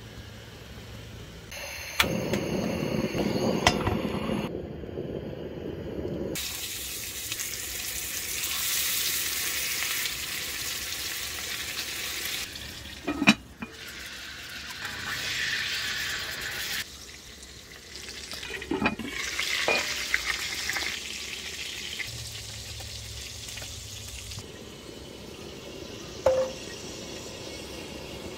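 Hamburger patties frying and sizzling in a cast iron skillet, a steady hiss heard in several short stretches, with a few sharp clinks or knocks between them.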